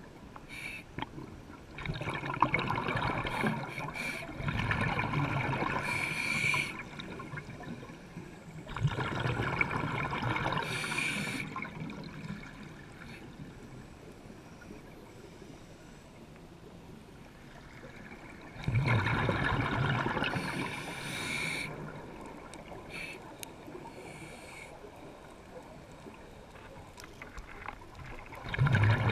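Scuba regulator breathing heard underwater: exhaled air bubbling out in bursts of two to four seconds, several seconds apart, with a quieter hiss between breaths.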